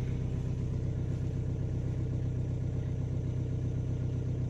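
Hyundai car's engine idling steadily, heard from inside the cabin after about ten minutes of warming up.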